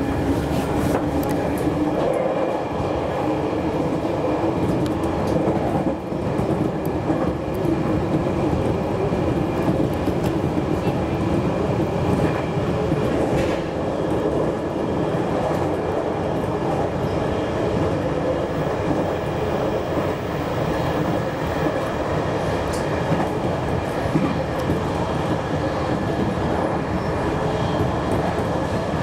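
JR Kyushu 813 series electric train running steadily, heard from just behind the cab: continuous wheel-on-rail and running noise with a faint steady whine and occasional clicks from the track.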